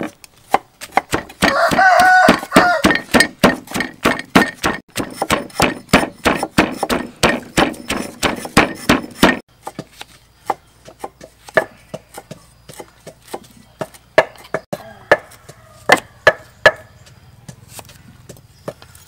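A pestle pounding Khmer curry paste (kroeung) of garlic, kaffir lime, turmeric and lemongrass in a mortar, in fast, even strikes about four a second. After about nine seconds this gives way to a knife chopping shallots on a wooden board, in sparser knocks.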